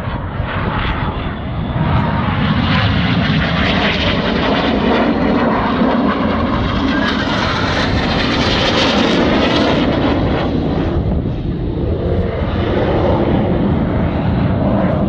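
Red Arrows BAE Hawk T1 jets passing over in display, a continuous jet roar that is brightest and highest about eight seconds in, with a sweeping, phasing sound as they pass.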